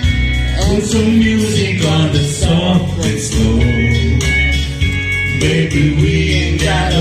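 Live country ballad: an acoustic guitar strums chords while a man sings through a microphone and PA.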